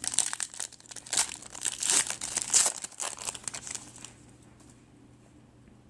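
Crinkling and rustling of a trading-card pack's foil wrapper as it is handled, with the crackle stopping about four seconds in.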